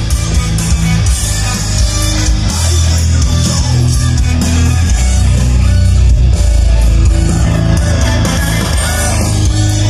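Guitar-driven music with heavy bass, played loud through a PA rig of Wharfedale Pro EVP X12 loudspeakers on Targa D12 subwoofers.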